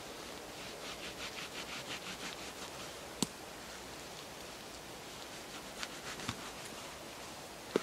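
A knife blade sawing back and forth through spruce bark: a quick rasping of about five strokes a second for a couple of seconds, then a sharp click about three seconds in and a few more clicks near the end.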